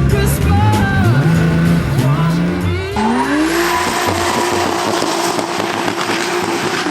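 Nissan S14 drift car engine revving up in rising sweeps. About three seconds in, the tyres break into a sustained screech while the engine is held at high revs.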